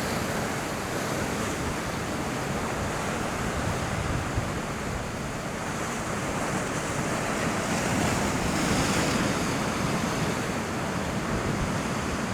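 Ocean swell surging and washing against the rocks, a steady rush that swells a little about eight seconds in, with wind on the microphone.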